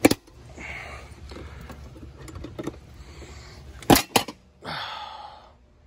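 Pliers working the charred pull-out block loose from an outdoor central-AC disconnect box: sharp metal clicks, one at the start and two close together about four seconds in, with scraping rustles between them.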